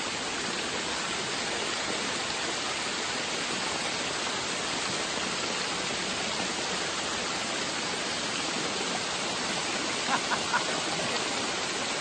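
Steady, even rush of a waterfall. A few faint short sounds come through about ten seconds in.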